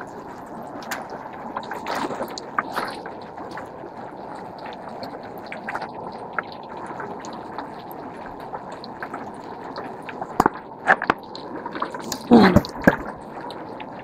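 Shallow river running over rocks, a steady watery rush, with scattered clicks and knocks of stones underfoot. Near the end, a brief loud sound falls in pitch.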